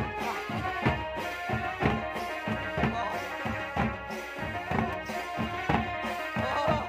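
Jharkhandi jhumar folk music: drums struck about twice a second under a steady melodic line.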